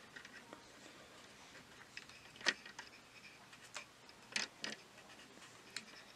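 A handful of light, scattered plastic clicks and creaks as fingers squeeze and flex the plastic body shell of a Hornby Class 50 model locomotive, trying to pop it off its retaining clips. The sharpest click comes about two and a half seconds in, with a close pair a little past four seconds.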